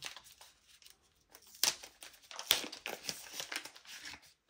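Packaging being handled and pulled open as a new action camera is unwrapped from its box: irregular rustling, with two louder, sharper rustles about a second and a half and two and a half seconds in.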